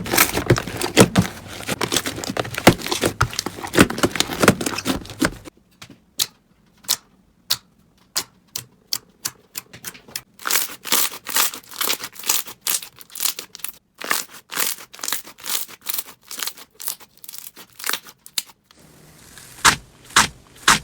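Slime being squished and stretched by hand: dense crackling for about five seconds, then sharp separate pops and clicks that come thicker again midway.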